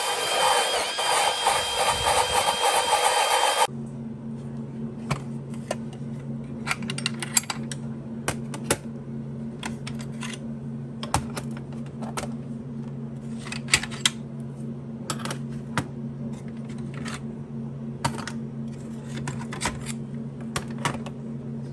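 A power tool whirs loudly and stops abruptly about four seconds in. After that a steady low hum runs, with scattered light clicks and clinks of metal hand tools being handled.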